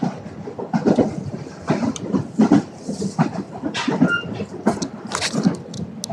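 Train running on the rails: irregular clatter and knocks from the wheels and carriage, with a brief high tone a little past the middle.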